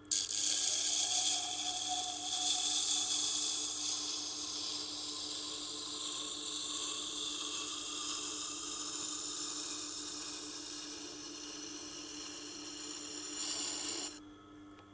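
Steel lawnmower blade being ground on a Tormek water-cooled sharpening stone. The steel on the wet wheel makes a steady, gritty hiss over the low hum of the machine's motor, and the hiss cuts off abruptly near the end.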